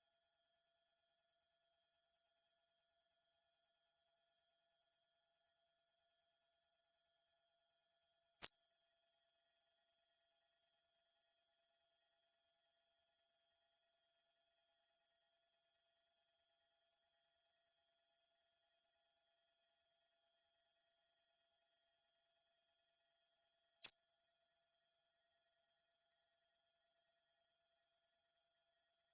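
Dog whistle sound effect: a single steady, very high-pitched tone, unbroken and at a constant level, with two brief faint clicks, one about eight seconds in and one near twenty-four seconds.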